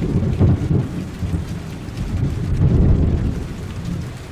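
Thunder rumbling over steady rain, a thunderstorm recording; the deep rumble swells about half a second in and again around two and a half to three seconds.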